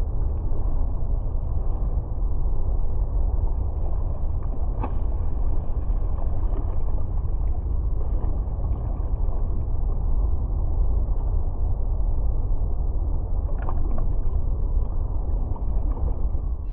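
Steady, muffled rumble of choppy water sloshing at the waterline beside a pontoon boat's hull, dull and deep, with two faint knocks about five and fourteen seconds in.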